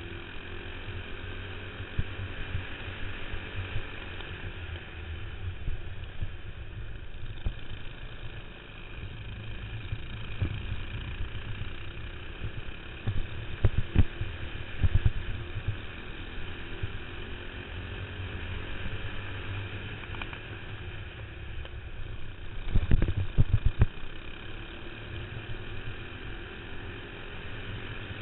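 Racing kart's single-cylinder four-stroke clone engine running on track, its pitch rising and falling as the kart accelerates and slows for corners. Loud low thumps on the microphone come in a cluster about halfway through and again a few seconds later.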